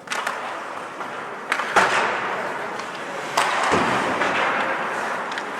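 Ice hockey play: skates scraping over the ice, with several sharp clacks and knocks of sticks, puck and boards, the loudest just under two seconds in and again around three and a half seconds.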